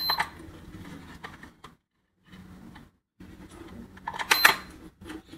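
Digital coffee scale beeping twice as its buttons are pressed: once on switching on near the start and once on taring about four seconds in. Clicks and light knocks of a stainless-steel dosing cup being handled come between the beeps.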